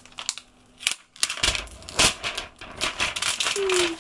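Cellophane shrink-wrap being picked at and torn off a cardboard box: a few small clicks of fingers on the plastic, then from about a second in a run of loud crinkling and crackling, with a short falling squeak near the end.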